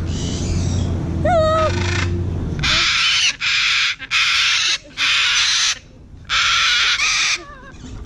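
A short whistled call rises and falls, then an umbrella cockatoo screeches five times in quick succession, each harsh screech under a second long.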